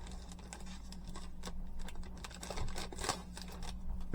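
Scattered light clicks and rustling from handling a new computer keyboard and its packaging, over a steady low hum.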